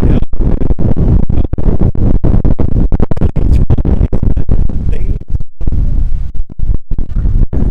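Strong wind buffeting a Rode VideoMicro shotgun microphone on an iPhone X: a loud, rough low rumble running close to full scale, chopped by rapid crackles and brief dropouts.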